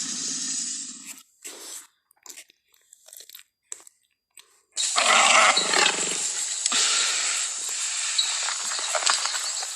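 Invented Pachyrhinosaurus dinosaur calls from a creature sound-effects set. A harsh, hissing call ends about a second in, then come a few short clicks and scraps of sound, then a long, loud, harsh call from about five seconds in that dies away near the end.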